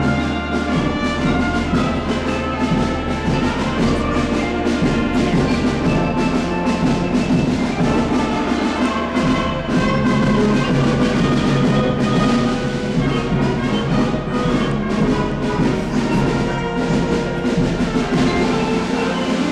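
Orchestral music with brass and timpani: held chords over steady drum strokes.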